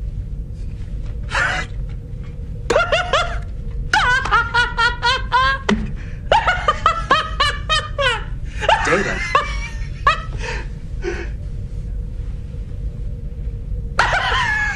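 A man laughing in long, rapid runs of ha-ha bursts, about four a second at their fastest, starting a few seconds in and easing off before a fresh burst near the end. A steady low hum runs underneath.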